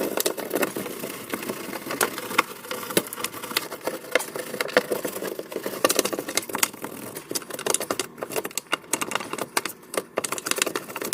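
Hands scrubbing and handling plastic dishwasher parts: a steady run of quick, irregular clicks and scratches.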